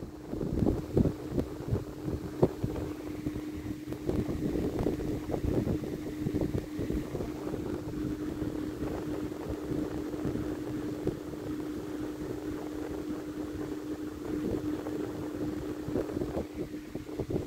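A steady low hum runs under an irregular rumbling, wind-like noise on the microphone.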